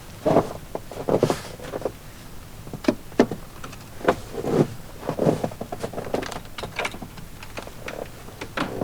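Footsteps of a hiker on a snowy trail: uneven steps, some in quick pairs, with short pauses between.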